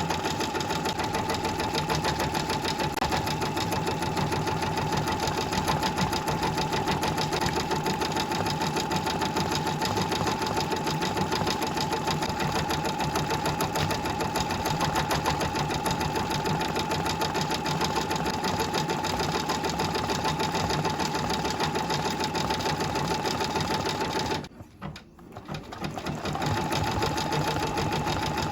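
Brother VR embroidery machine stitching at a fast, steady rhythm. It stops for a moment about 24 seconds in, then starts stitching again.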